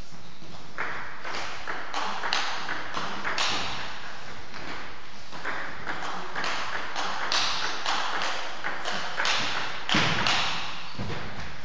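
Table tennis warm-up rally: a ball tapped back and forth between bats and table in quick, irregular knocks, several a second.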